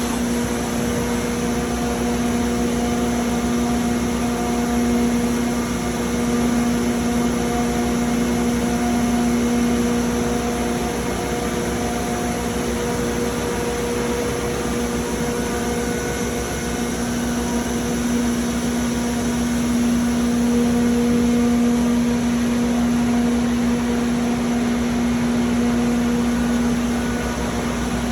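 Hurco VMX 42ui vertical machining center running: a steady electric hum with a fixed-pitch whine and a constant hiss of machinery, unchanging throughout.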